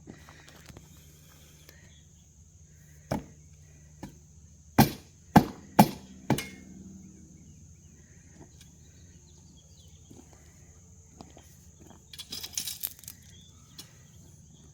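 Several sharp knocks: one about three seconds in, then four in quick succession around five to six seconds, and a short cluster of clicks near the end, over a faint steady high-pitched hum.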